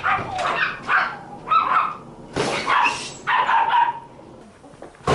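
A puppy barking and yelping, about six short, sharp calls in the first four seconds.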